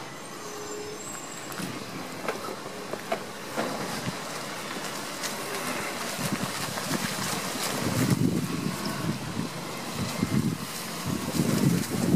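Rubbish truck running at a distance, a steady hum under the street noise. Wind buffets the microphone in rumbling gusts during the last third.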